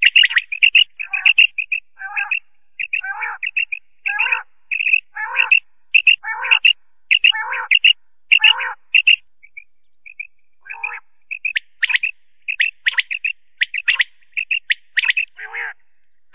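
Common quail calling: short, sharp notes repeated in quick clusters, several a second, with a brief lull about ten seconds in.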